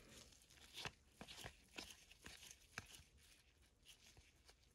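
Faint clicks and light rustles of a stack of Prizm football cards being slid apart one by one in gloved hands, the rest near silence.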